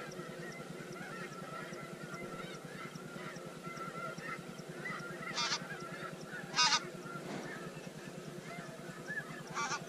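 A large flock of snow geese calling: a dense, continuous chorus of high yelping honks, with three louder single calls standing out, about five and a half seconds in, at six and a half seconds, and near the end.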